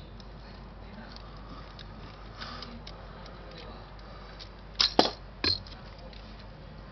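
Yashica Electro 35 CC camera being handled, with a few small clicks. About five seconds in comes a quick cluster of three sharp clicks as the rewind knob is pulled up and the film back door springs open.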